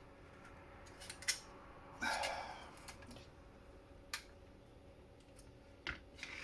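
A screwdriver clicking and scraping against the plastic of a laptop dock while prying at heat-staked plastic pegs: a couple of sharp clicks about a second in, a short scrape about two seconds in, then single clicks near four and six seconds.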